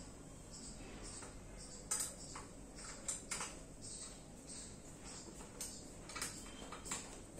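Irregular light clicks and taps of hard plastic office-chair parts being handled and fitted by hand, with the sharpest knocks about two, three and six to seven seconds in.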